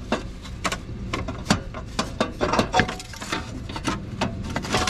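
Irregular sharp metallic clicks and knocks as the exhaust manifold with its catalytic converter is worked loose off the cylinder-head studs, metal parts rattling against each other.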